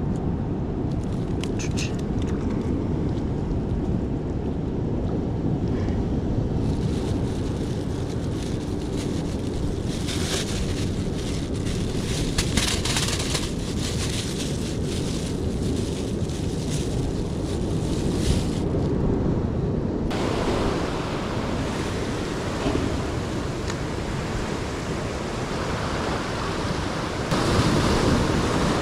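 Wind buffeting the microphone over the wash of surf, with bursts of rustling in the middle; near the end the surf grows louder as waves break against the rocks.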